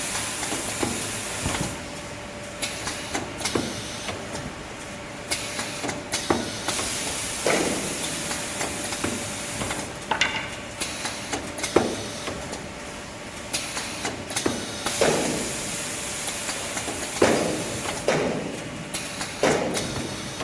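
Toilet paper band saw cutting machine running: a steady hum, with repeated short hissing bursts at irregular intervals of a second or two.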